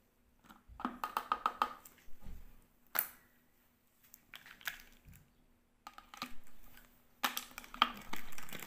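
Plastic bottle and funnel being handled on a granite counter. A quick run of small plastic clicks and taps comes about a second in, then one sharp click. Near the end there is denser rustling and clicking as the spray cap goes on and the bottle is picked up.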